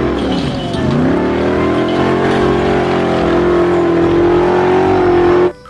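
Off-road buggy engine revving hard as it climbs a loose gravel slope. Its pitch dips and rises again in the first second, then holds high and steady at full throttle, and the sound cuts off suddenly near the end.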